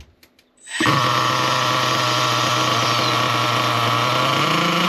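Small nitro glow engine of an RC car fires up about a second in and runs steadily. Its revs rise near the end as the fuel hose is pinched and the engine starves of fuel, during a pinch test of the low-speed needle setting.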